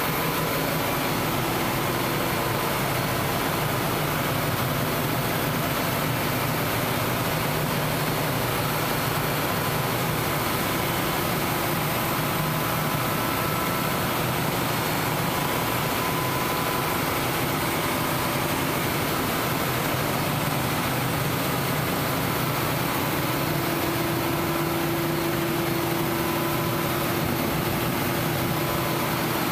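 Diesel machinery running at a steady speed in a tugboat's engine room: a constant loud drone with a steady hum, joined by an extra low tone about three-quarters of the way through.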